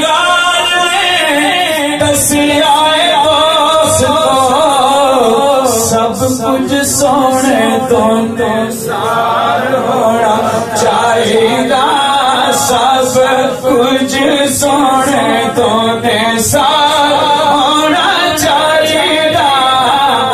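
A man singing a naat unaccompanied into a microphone, in long, wavering held notes that ornament each line.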